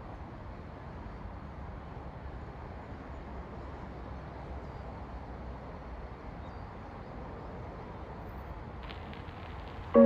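Steady outdoor ambient noise: a low, even rumble with no distinct events, and a few faint ticks near the end.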